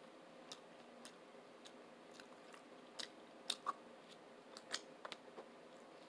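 Faint, wet mouth clicks and smacks of someone chewing a mouthful of tuna sub close to the microphone, coming irregularly with a few louder smacks about three to five seconds in.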